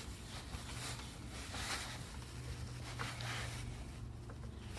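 Hand screwdriver tightening a screw into a concealed cabinet hinge: several soft, brief scraping turns over a low steady hum.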